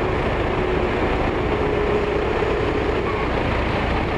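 An engine running steadily, with a faint drone that rises slightly in pitch about two seconds in, typical of road-repair machinery or a heavy vehicle at work.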